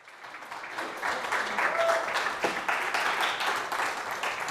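Audience applauding, fading in over the first second.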